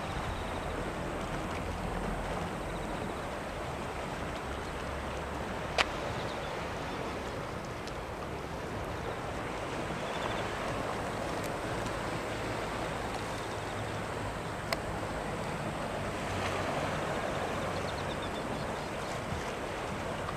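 Small waves washing against a rocky shore, a steady wash that swells a little now and then, with wind rumbling on the microphone. Two short sharp clicks stand out, one about a third of the way in and one about three-quarters in.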